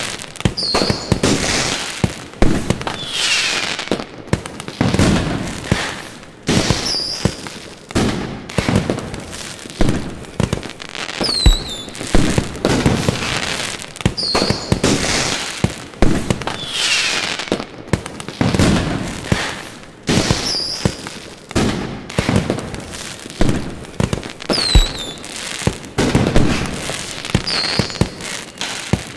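Aerial fireworks display: shells bursting in quick succession, a loud bang every one to two seconds, with short high-pitched whistles sweeping down in pitch between the bursts.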